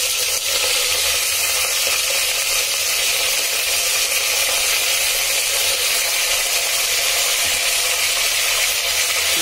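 Mutton pieces sizzling steadily in hot oil in an aluminium pressure cooker over a high gas flame, as the water from the meat cooks off.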